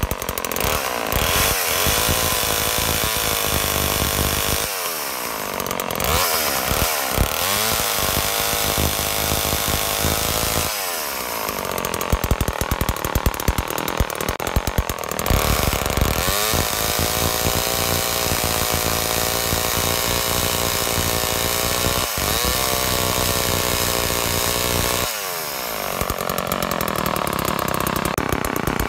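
Two-stroke engine of a restored vintage all-metal Homelite chainsaw, revved up and dropping back toward idle several times.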